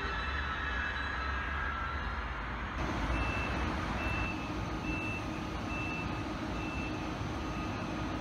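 A DB Class 101 electric locomotive runs past with a rumble and a few whining tones. About three seconds in, an ICE 3 high-speed train standing at the platform sounds five short, high beeps a little under a second apart over a steady hum: its door-closing warning before departure.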